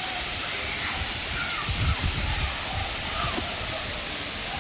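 Steady rushing of a waterfall, with a few low rumbles about two seconds in.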